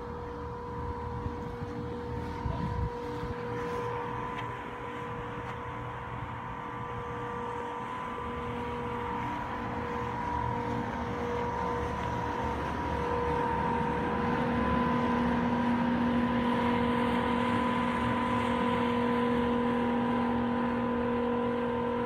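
Outdoor central air-conditioning condenser units running: a steady hum over fan noise. It grows louder about halfway through, where a lower hum joins in.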